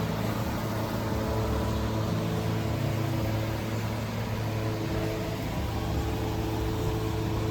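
A steady machine hum with a constant hiss, holding level throughout, like a running shop fan or similar motor.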